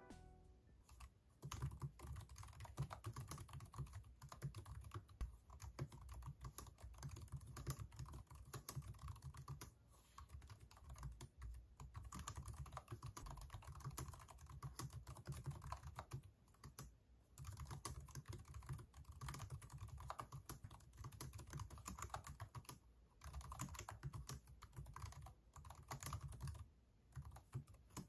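Typing on a Samsung Smart Keyboard Trio 500: a fast, continuous run of key clicks with a few brief pauses.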